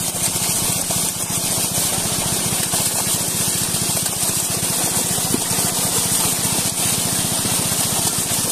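Water splashing and spraying hard as a mass of fish thrash inside a hauled-in seine net. Underneath runs a small engine, a rapid, even low throb that stays steady throughout.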